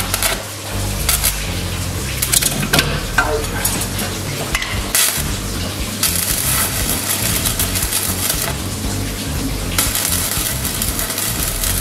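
Electric arc (stick) welding of an anode onto a steel narrowboat hull: the arc crackles and sizzles, in several runs broken by short pauses. The two longest runs come about halfway through and near the end.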